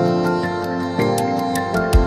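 Background music: sustained chords that change about once a second over a light, regular ticking beat, with a deep low hit near the end.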